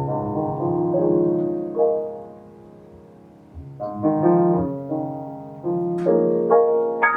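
Jazz piano playing slow chords in short phrases, each chord struck and left to ring, with a brief lull about two seconds in before the phrases resume.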